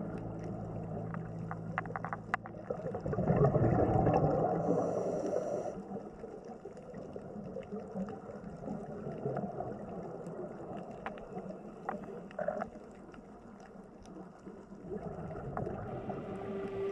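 Water splashing and gurgling, swelling to a louder surge about three seconds in, with scattered small clicks and drips.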